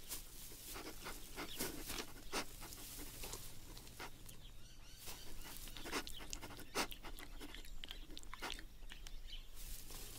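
A male red kangaroo sniffing and snuffling at a female's rear in a series of short, irregular sniffs: he is testing her urine to tell whether she is ovulating.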